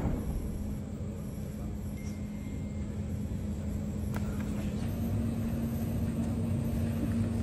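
Low steady rumble of room noise with a faint continuous hum, and a faint click about four seconds in.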